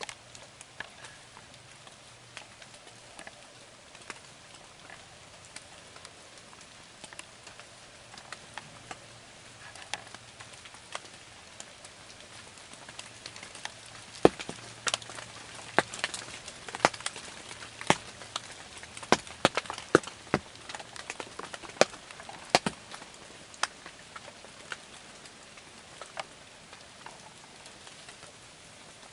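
Scattered raindrops ticking irregularly on a hunting blind, sparse at first and thickest from about halfway through.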